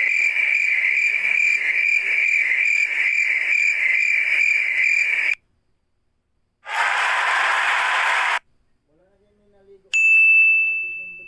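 Three separate sound effects in a row. First, a high electronic ringing tone that pulses about three times a second for about five seconds and stops. Next comes a short hiss-like burst, then a single bright ding that rings out and fades.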